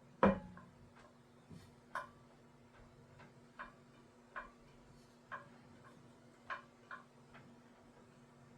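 Metal clicks from a freshly greased driveshaft U-joint being worked back and forth by hand: one sharp click near the start, then lighter clicks about once a second, over a faint steady hum.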